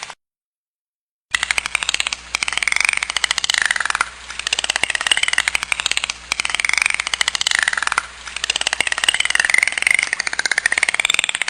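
Dolphin clicking in rapid, buzzing trains, overlaid with whistles that rise and fall in pitch. The calls come in several phrases with short dips between them, and begin after about a second of silence.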